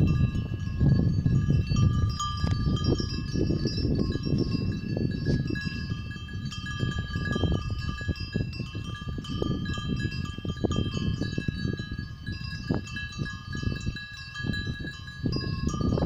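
Bells on grazing cows ringing continuously, several overlapping bell tones sounding at once, over a louder low rumble of wind on the microphone.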